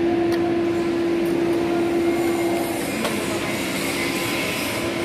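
Steady running noise of workshop machinery with a constant hum, which weakens from about halfway through and comes back near the end.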